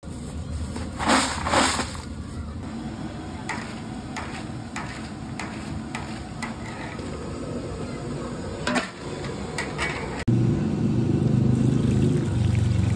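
Fried potato wafers tossed by hand in a steel bowl, with loud crisp crunching rustles, followed by a series of light clinks and knocks. About ten seconds in, a louder steady low sound suddenly takes over.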